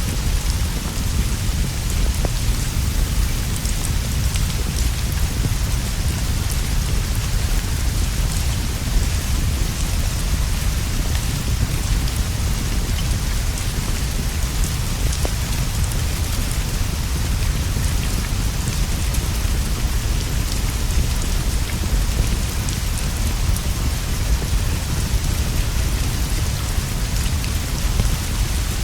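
Steady rain falling on leaves and a straw roof, with a constant deep rumble underneath and faint scattered crackling pops from a fireplace.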